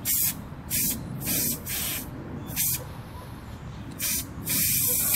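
Aerosol spray-paint can hissing in about seven short bursts, the last one nearly a second long.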